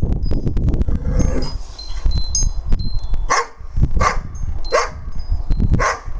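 Young dogs play-fighting: scuffling noise for the first two seconds, then one dog gives four short, sharp play barks, roughly one a second, from about halfway in.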